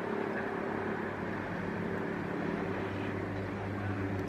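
Steady low engine drone under a constant rush of wind and sea noise.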